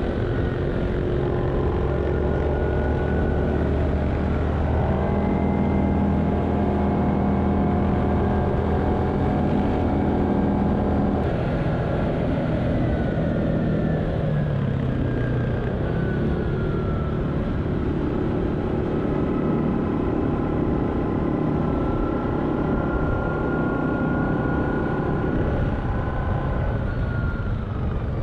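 Yamaha 700-class ATV's single-cylinder engine running at a steady cruising speed, with tyre and wind noise on a gravel road. The engine note drops a little about halfway through, then steadies again.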